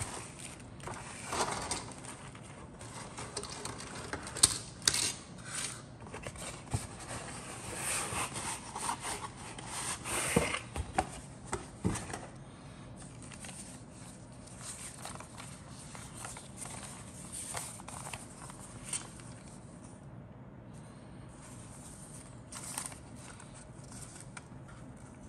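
Rustling and crinkling of clear plastic parts bags and paper as hands unpack a plastic model kit from its cardboard box. There are many short sharp crackles through the first half, then only a few quieter rustles.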